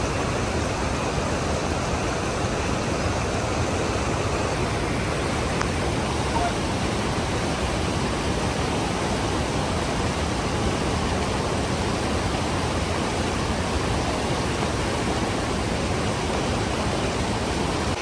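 Rushing water of a mountain waterfall and stream, a steady, unbroken rush.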